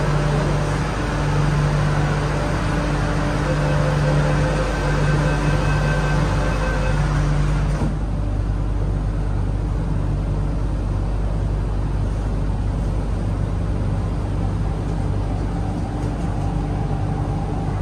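Steady rumble and hum inside an MTR Island Line Q-Train at a station stop, with steady machine tones. About eight seconds in, the hiss abruptly drops away, leaving a lower steady hum.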